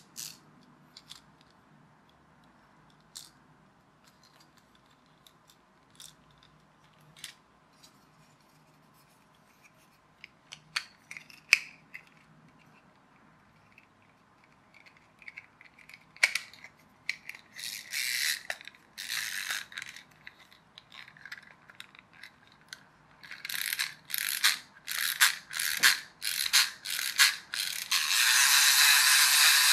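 Small plastic clockwork toy crab being handled: scattered sharp plastic clicks, then bursts of rattling, ratchet-like clicking. Near the end its clockwork mechanism runs with a steady whirr.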